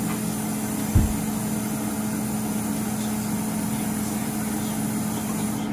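A steady mechanical hum with a constant low tone, and one dull thump about a second in.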